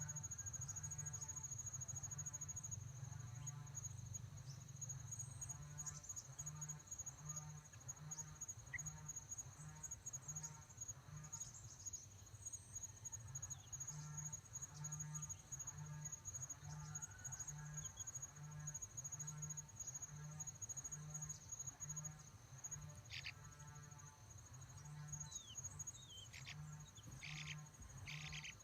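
Insects trilling steadily at a high pitch, over a low pulsing beat roughly once a second. A few short, sharp bird chirps come near the end.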